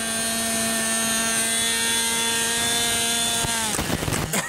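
Model aircraft's motor and propeller whining at a steady pitch, then winding down in pitch and stopping about three and a half seconds in, followed by a few knocks.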